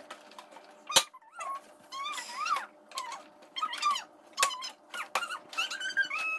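Hard plastic toy-playhouse parts knocking and clicking as they are pressed together. The fittings are stiff and have to be pushed hard to lock. A few sharp clicks stand out among high, wavering squeaks.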